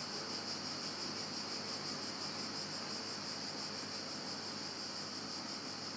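Low, steady hiss of room tone with no distinct event.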